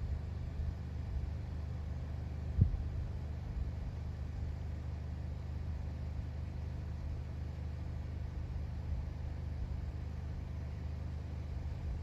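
Steady low rumble, with a single short thump about two and a half seconds in.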